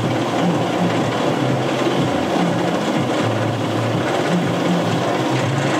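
Hybrid roller coaster train clattering steadily up its chain lift hill, over a constant wash of noise and a low hum.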